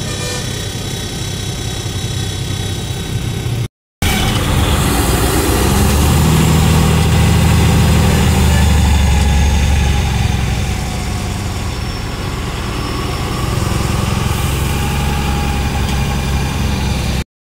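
Diesel truck engine heard from inside the cab as the truck creeps forward in stop-and-go traffic; it pulls harder for several seconds in the middle, then eases back. The sound cuts out briefly about four seconds in.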